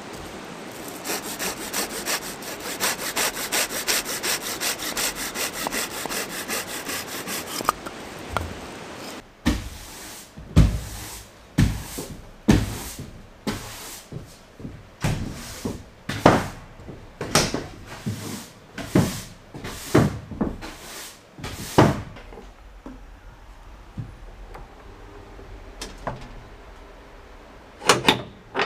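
A saw cutting firewood. Several seconds of quick, even strokes give way to slower, heavier separate strokes about one every three-quarters of a second. A pause follows, then two last strokes near the end.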